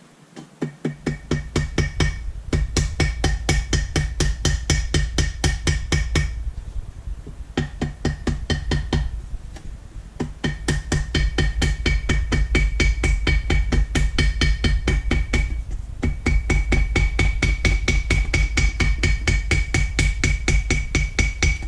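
Small hammer tapping rapidly on the edge of a metal part, several ringing taps a second, to cut out a paper gasket against the edge of its inside hole. The tapping stops briefly a few times.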